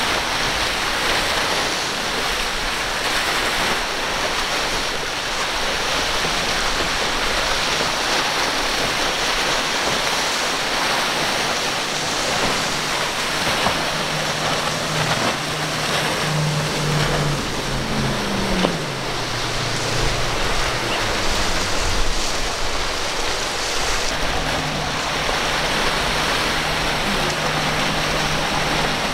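Wind and choppy sea water on the microphone, with outboard-powered boats running past at speed. From about halfway through an engine note comes in, drops in pitch as a boat goes by, then holds steady near the end.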